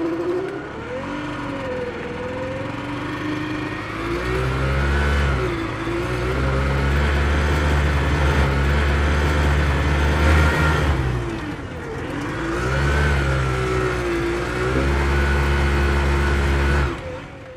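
Krause Duo 4/1's single-cylinder Simson two-stroke moped engine running under way, its pitch dropping and climbing back twice as it is driven, then cutting off suddenly near the end.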